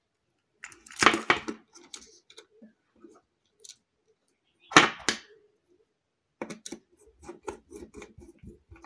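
Hands working a bare copper wire link between the screw terminals of a plastic switch board: a clatter about a second in, a sharp click near the middle, then a run of small quick ticks and taps.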